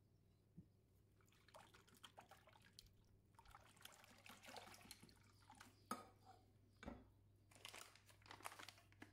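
Wire whisk beating a runny batter in a glass bowl: faint, irregular liquid sloshing and swishing. There is a sharp knock about six seconds in and a dull thump about a second later.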